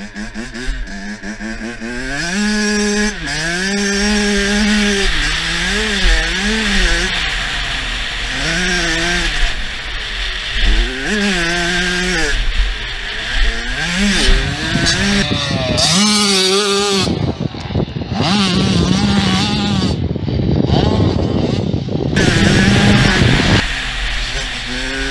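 Kawasaki KX85's two-stroke single-cylinder engine revving up and down under load, its pitch climbing and dropping again and again through gear changes and throttle roll-offs, with wind buffeting the bike-mounted camera microphone. For several seconds past the middle the engine note sinks under a rush of wind and track noise.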